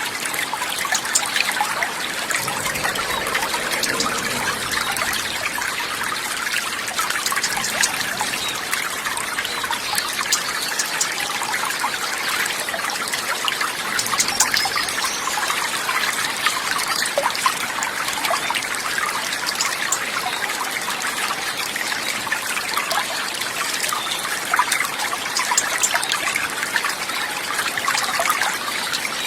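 Running water trickling steadily, a dense continuous babble of fine splashes.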